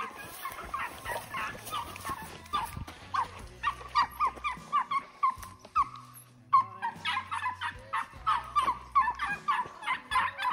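A pack of hounds baying in many short, overlapping calls, with a brief lull about six seconds in: the dogs are running a rabbit's trail.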